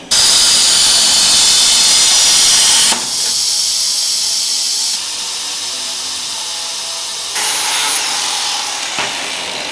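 CNC plasma cutter torch hissing steadily as it cuts a metal bracket from sheet, loudest in the first few seconds. Near the end, a corded angle grinder grinds the cut part.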